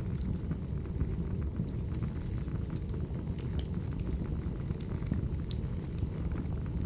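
Burning firewood: a steady low rush of flames with scattered sharp crackles and pops from the logs.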